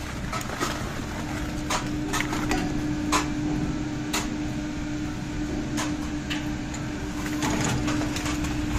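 Doppelmayr chairlift bottom station running with a steady hum and low rumble, with a dozen or so sharp metallic clinks and clacks scattered through it.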